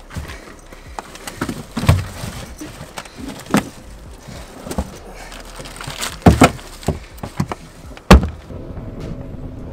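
A string of knocks and thuds on a boat's fibreglass fish box as a cobia is shoved into it, with a hard bang about eight seconds in as the lid comes down.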